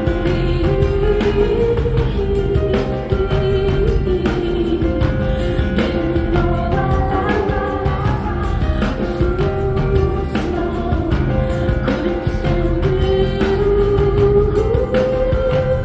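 Live rock band music: a steady drum beat and dense low end under a long, slowly gliding held melody line, with singing over it.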